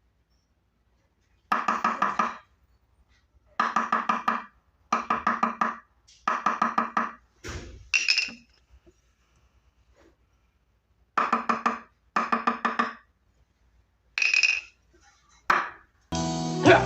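A foley effect of rapid, pitched tapping in short bursts of about half a dozen quick strokes each, repeated about ten times with pauses between. Music starts near the end.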